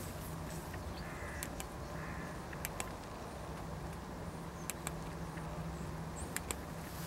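Four pairs of short, sharp clicks from the tail switch of a Led Lenser P7.2 LED flashlight as it is switched on and off, over a steady low background hum.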